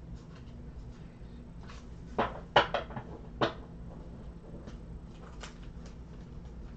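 A quick cluster of four or five sharp knocks or clicks about two seconds in, the second one the loudest, over a steady low hum.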